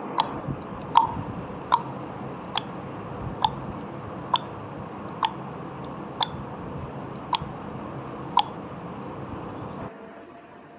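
Countdown timer sound effect: ten sharp ticks about a second apart over a steady hiss. The ticks stop shortly before the end, and a faint held tone follows.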